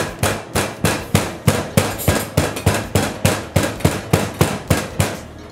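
Flat-headed meat pounder striking a breadcrumbed pork cutlet on a steel tray of breadcrumbs, beating it thin: a steady run of thuds, about three or four a second, that stops near the end.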